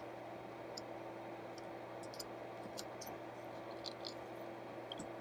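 Irregular faint clicks from the push buttons on a Blaupunkt Monterey SQR 23 car radio's front panel as they are pressed and worked by hand, over a steady low hum.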